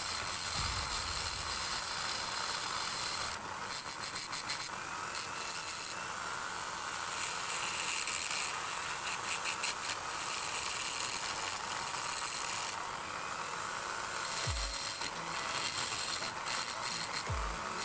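Small pen-style rotary grinder running at a high whine with a burr bit, grinding the aluminium of a Yamaha Jupiter Z cylinder head to enlarge the ports. The sound keeps changing into a rapid rattly chatter and back as the bit bites into the metal and eases off.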